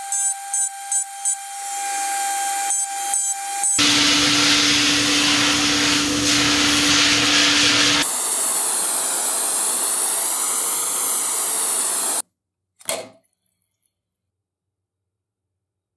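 Workshop power tools working metal, in three abruptly cut stretches. First a steady high whine with short strokes repeating about three times a second, then a louder hiss over a steady low hum, then a hiss whose pitch slowly wavers. It cuts off suddenly, followed by one short burst of noise.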